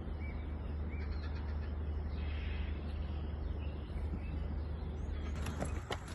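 Small birds chirping over a steady low rumble, with a few sharp knocks starting near the end.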